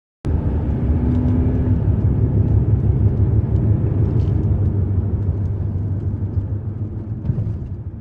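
Vehicle ride heard from on board: a steady low engine and road rumble that cuts in suddenly and eases off near the end.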